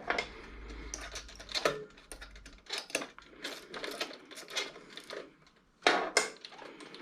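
Irregular metallic clicks and clinks of hand tools and small parts being handled, in no steady rhythm.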